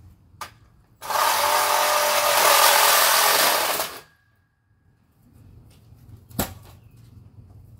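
A handheld power tool runs for about three seconds and cuts off. A small click comes just before it, and a single sharp knock follows a couple of seconds later.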